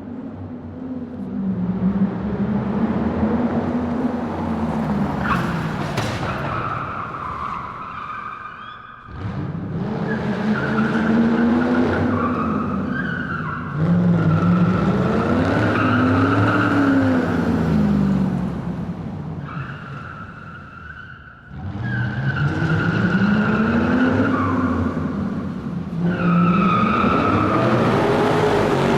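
Car tyres squealing on a hall floor, echoing, with the engine revving up and down under them. The squeals come in several long runs, with short lulls about nine and twenty-one seconds in.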